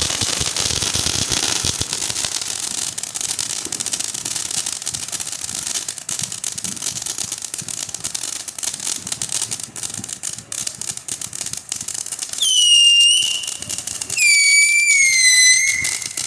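TNT "Justice" consumer firework going off: a dense crackle of rapid pops that thins out, then two loud whistles near the end, each falling slightly in pitch, the second longer, about two seconds.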